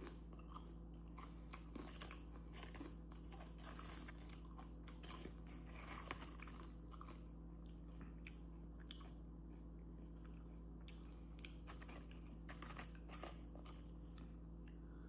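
Close-miked chewing and crunching of homemade fried white corn tortilla chips: a run of small, irregular crunches. A faint steady hum lies underneath.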